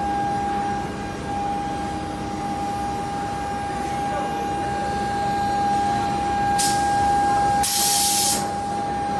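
Intermediate-frequency induction furnace running, giving a steady high-pitched whine over a broad mechanical hum. Near the end there are two bursts of hiss, the second longer and louder.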